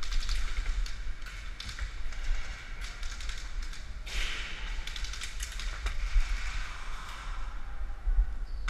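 Airsoft guns firing during a game: sharp clicks and pops at irregular intervals, some close together, over a steady low rumble of camera handling.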